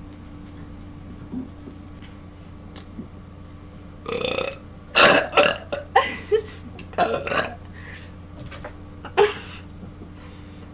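A person burping in a quick string of short, loud burps, the first about four seconds in, the loudest just after, and a last single burp near the end.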